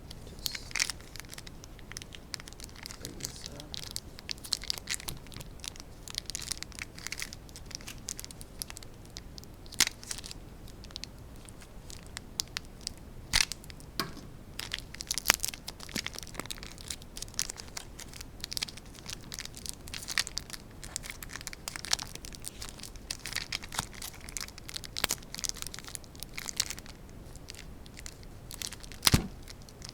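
Packaging handled and unwrapped by hand: crinkling and tearing with scattered clicks and taps throughout, and one louder knock near the end.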